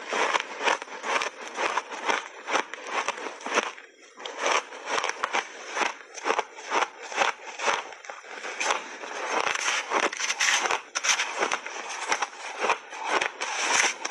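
Close-up crunching of refrozen shaved ice being chewed in big mouthfuls: a steady run of crisp crunches, about two to three a second, with a brief pause about four seconds in.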